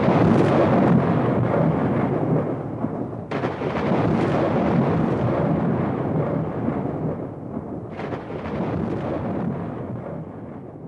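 Thunder rolling in a long, loud rumble, with a new crack of thunder breaking in about three seconds in and another about eight seconds in, then dying away near the end.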